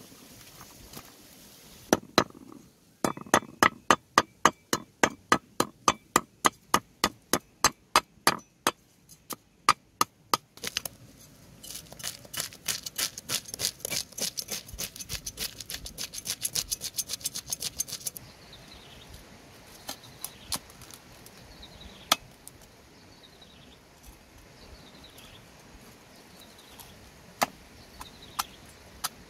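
Heavy cleaver chopping fish on a wooden chopping block: steady hard chops about two a second, then a run of quicker, lighter strokes, then occasional single chops near the end.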